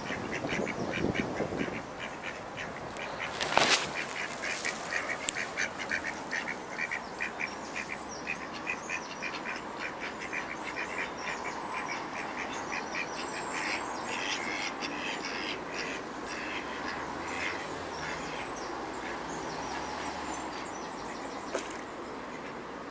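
Ducks quacking, short calls repeated quickly one after another, with a single brief loud sound about three and a half seconds in.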